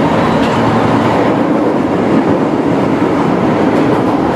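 Osaka Metro Tanimachi Line subway train running through a tunnel, heard from inside the car: a steady, loud rumble of wheels on rail with a couple of light clicks.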